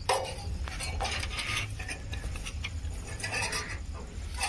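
Metal dip rod knocking and scraping inside a bus's diesel tank filler as the fuel level is checked: a handful of short metallic clicks and clinks, the sharpest just after the start.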